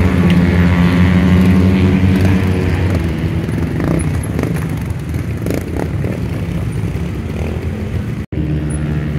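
Trials motorcycle engine running at low, steady revs, growing weaker after about three seconds as the bike moves off. The sound drops out for an instant near the end.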